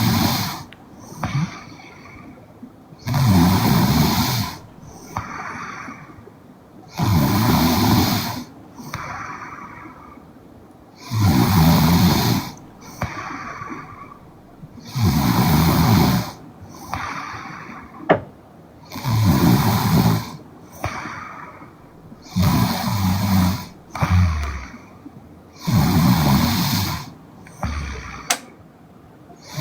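A young woman snoring in her sleep: a loud, rasping snore about every four seconds, each followed by a softer breath, in a steady rhythm.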